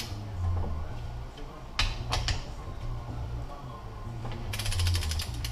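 Ratchet wrench working the bolts of a transfer case cap: a few separate metallic clicks about two seconds in, then a fast run of ratchet clicks near the end.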